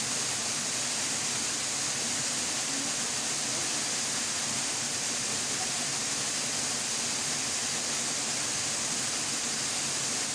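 Steady hiss of rushing stream water, even and unbroken.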